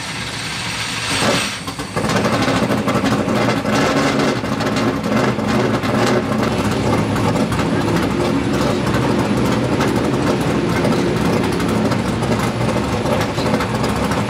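Dirt modified race car's V8 engine starting about two seconds in, then running steadily at idle.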